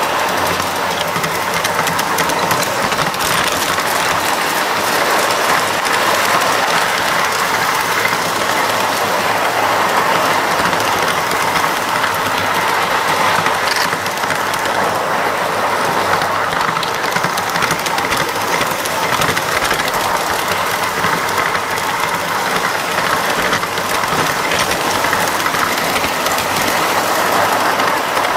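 LGB G-scale model train running on its track, heard close up from a car riding on the train: a steady whir of the locomotive's electric drive and the wheels on the rails, with scattered light clicks from the track.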